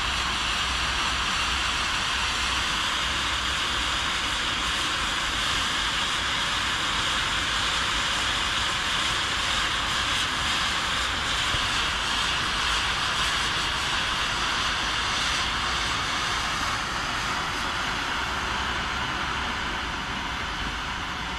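Firework fountains spraying sparks with a steady rushing hiss that fades away near the end.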